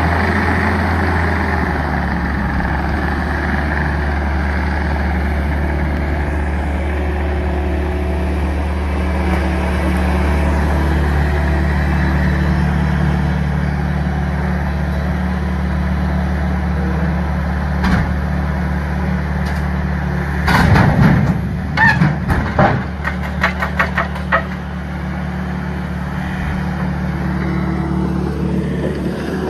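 Ditch Witch SK3000 compact loader's engine running steadily under load as its grapple lifts logs. About two-thirds of the way through, a burst of loud knocks and clatters, a dozen or so over about four seconds, as the logs are dumped into the dump truck's bed.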